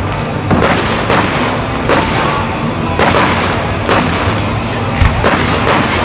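Fireworks display set to music: aerial shells launching and bursting in repeated sharp bangs, at irregular intervals, over a loud music soundtrack.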